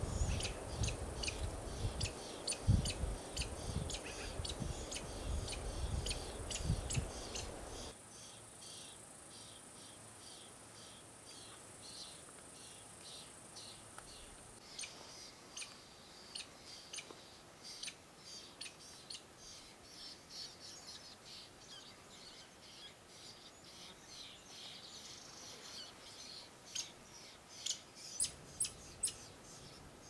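Nestling Lewis's woodpeckers begging inside the nest hole: a steady run of short, high chirps, two or three a second, with a few louder ones near the end. A low rumble underlies the first eight seconds and stops abruptly.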